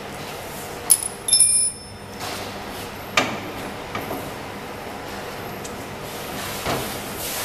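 Handling noise from a conveyor belt being fitted onto a needle detector's conveyor frame: a sharp click about a second in, then a short ringing clink, and a few softer knocks later, over a steady background hum.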